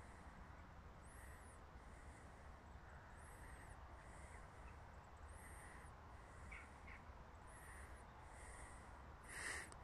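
Near silence: faint open-air background hum, with two faint short high sounds about two-thirds of the way through and one brief harsh sound near the end.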